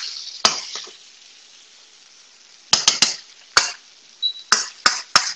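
Metal wok ladle and tongs clinking against steel woks while stirring noodles: one sharp clink, then a pause of about two seconds, then a string of about seven clinks. Frying noodles sizzle during the first second.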